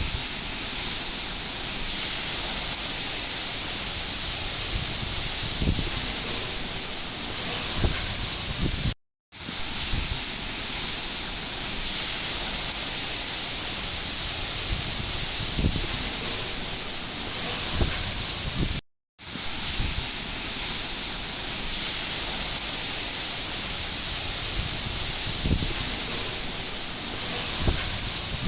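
Steady heavy rain, an even hiss with scattered soft low thuds, breaking off into silence for a split second twice, about ten seconds apart.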